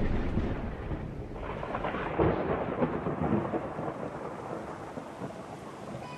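Thunder rumbling and dying away, then rain falling steadily with a patter of drops.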